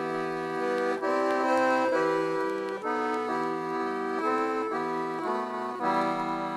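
Background instrumental music: a tune of held notes and chords that change every half second to a second.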